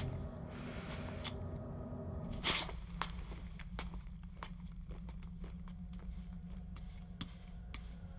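Footsteps in sandals on a tiled floor: a louder scuffing step about two and a half seconds in, then scattered light taps, over a steady low hum.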